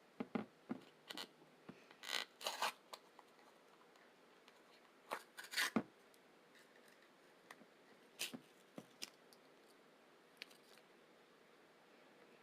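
Close-miked eating sounds at a breakfast of pancakes, eggs and fruit: scattered soft clicks and brief rasping bursts, the loudest about two and five seconds in.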